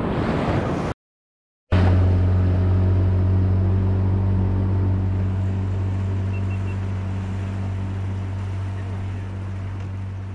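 Rushing water and wind noise that cuts off abruptly about a second in. After a short gap, a steady low hum takes over and slowly fades.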